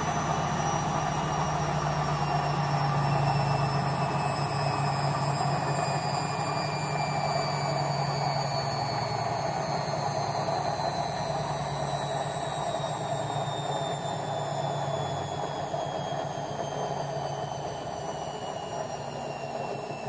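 Logik L712WM13 front-loading washing machine on its final spin, slowing down. The motor whine falls steadily in pitch and the whole sound slowly gets quieter. Under the whine is the rumble of the drum's bad bearings.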